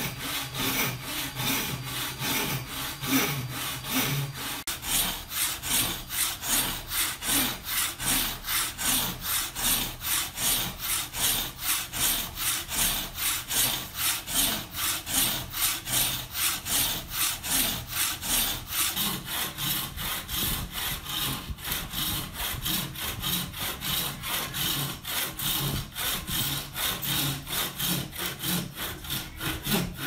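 Wooden frame saw ripping lengthwise through a thick block of wood, in a steady rhythm of back-and-forth strokes.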